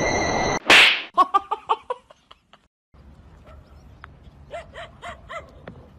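A sudden loud swish or smack, then a quick run of short, pitched vocal cries. After a pause, faint scattered voices.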